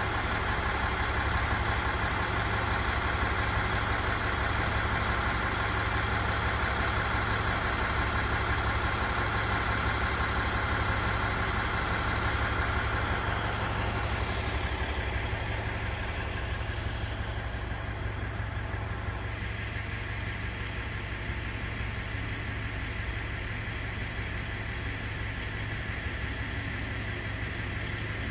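Diesel engine of a JR East KiHa 110-series railcar idling steadily while the railcar stands waiting. Its higher-pitched whine fades and the sound grows a little quieter about halfway through.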